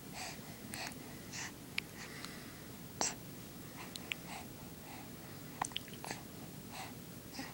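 A baby's soft, breathy puffs of breath at irregular intervals, with a few small sharp clicks, one louder about three seconds in.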